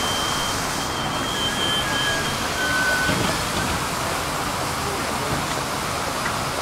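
Tram passing with a steady rushing rumble. Two thin, high whining tones run through the first three seconds, one higher and one lower.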